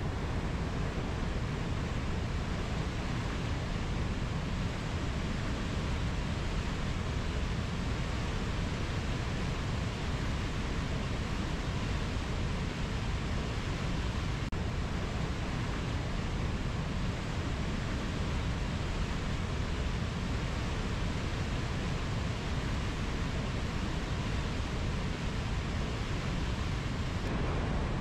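Mountain river flowing over low rapids: a steady, even rush of water.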